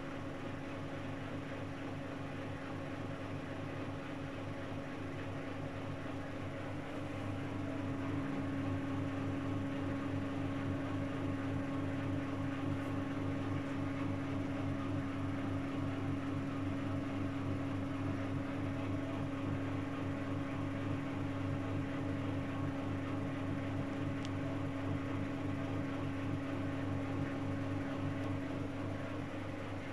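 Whirlpool FSCR90425 washing machine spinning an unbalanced load: a steady motor hum that grows louder about seven seconds in and eases off near the end.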